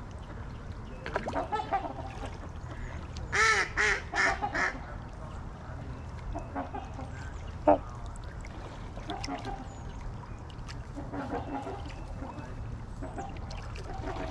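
Waterfowl calling: three loud honks in quick succession about three and a half seconds in, with scattered fainter honks and quacks before and after. There is one short sharp sound near the middle, over a steady low background rumble.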